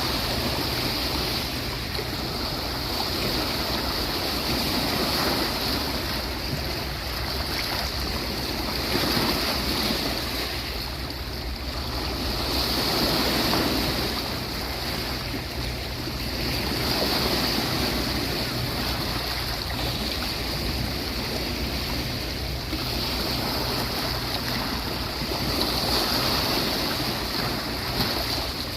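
Sea waves washing onto a beach, the surf swelling and easing every few seconds over a steady high hiss.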